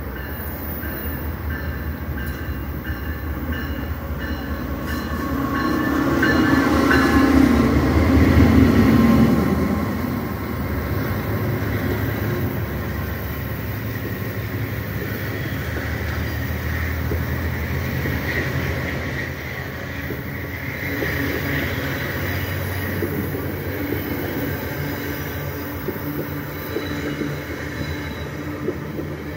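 Diesel locomotive of a passenger train passing close by: its engine grows loud and peaks about seven to nine seconds in as it goes past, then the passenger cars roll by with a steady noise of wheels on rails.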